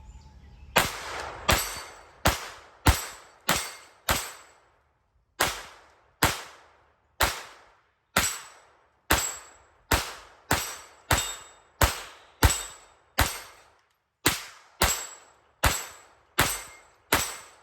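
Kel-Tec CP33 .22 LR semi-automatic pistol firing a long string of single shots, each with a short fading echo, paced about one every half second to a second, with a brief pause after the first six.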